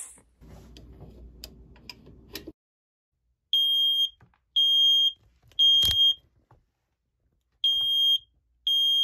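Smoke alarm sounding in the temporal-three pattern, set off by smoke from dirty dishes left in a preheating oven. It gives three loud, high-pitched beeps about half a second each, pauses, then starts the next set of three.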